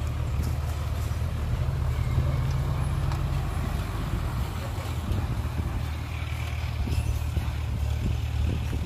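Diesel engine of a Hyundai dump truck loaded with soil, running steadily as it drives slowly past over a dirt lot, with a deep low rumble.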